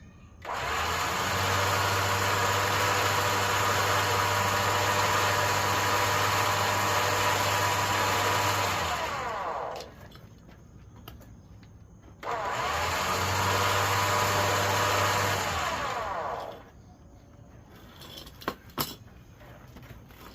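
Harbor Freight 9,000 lb electric winch motor running under power twice, winding on its new cable: first for about nine seconds, then for about four. Each run starts abruptly and drops in pitch as the motor coasts to a stop. A few sharp clicks follow near the end.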